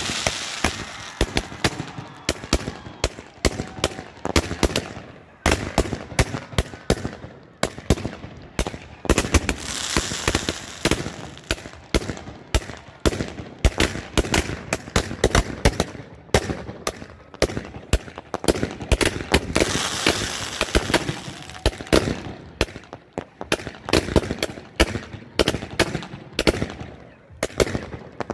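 Close-range fireworks cake (multi-shot battery) firing: a rapid, irregular string of sharp launch bangs and breaks, with a few stretches of hissing from fountain and comet tails.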